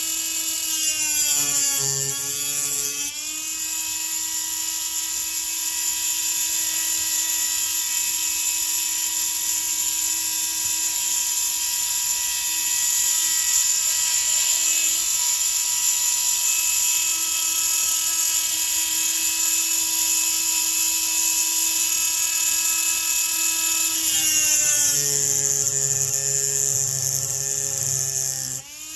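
High-speed rotary grinding tool running steadily with a high whine while porting a chainsaw. Twice, once early and again for several seconds near the end, the pitch sags and a rough grinding noise joins in as the bit is pressed into the metal. It shuts off just before the end.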